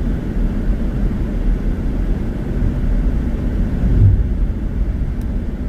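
Car driving on the road, heard from the cabin: a steady low rumble of engine and tyre noise, with a brief low bump about four seconds in.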